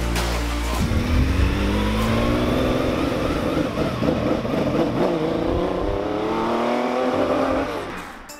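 Car engine accelerating hard, its pitch rising again and again, then fading away near the end.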